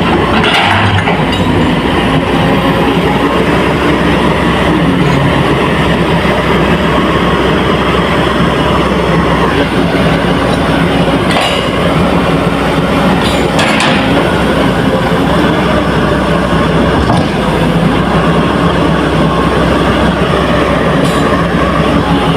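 Hydraulic excavator's diesel engine running steadily under working load, with a few sharp metal clanks.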